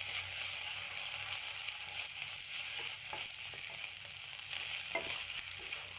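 Onion, green chilli, curry leaves and ginger-garlic paste sizzling steadily in hot oil in a pan, with a few light clicks of stirring from about halfway through.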